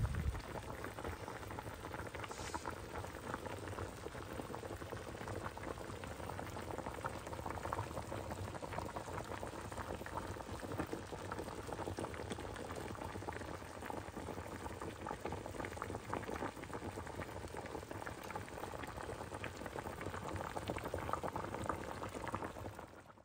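A pot of beef short ribs simmering in broth, bubbling and popping steadily. A short thump comes right at the start.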